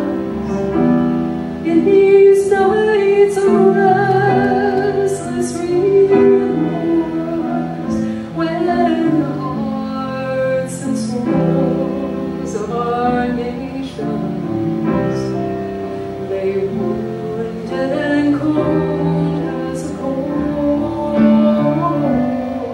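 A woman singing into a microphone with long held notes, accompanied by a grand piano.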